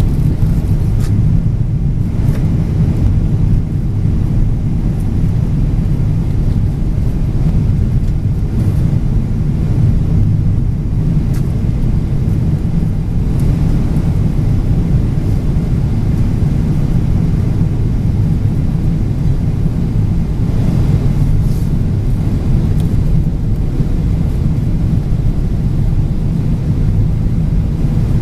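Steady low rumble inside an airliner cabin: the engines and the air rushing past the fuselage.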